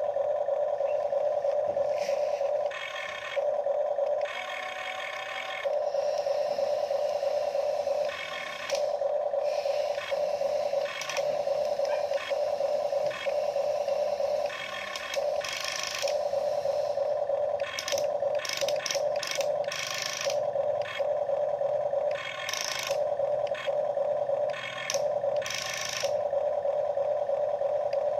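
Huina RC toy excavator's small electric motors and gearboxes whining as the boom, arm and bucket move, stopping and restarting every few seconds, with short gear clicks and scrapes in between.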